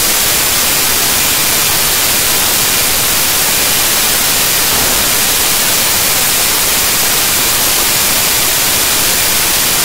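Loud, steady static hiss, spread evenly from low to high pitches, that drowns out any other sound: white noise on the audio track.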